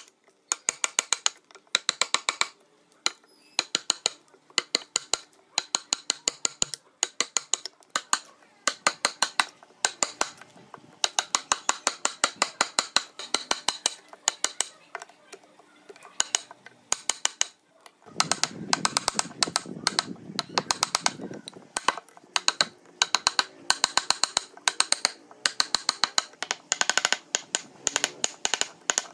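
A hammer rapidly tapping a steel chisel into old dry wood, in runs of several quick strikes with short pauses between them. About two-thirds of the way through, a rougher, lower noise runs under the strikes for a few seconds.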